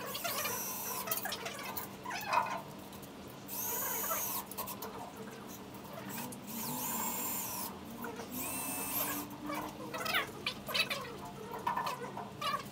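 Cordless drill driving screws, whining in four short runs of about a second each, with small clicks and knocks of metal parts between the runs.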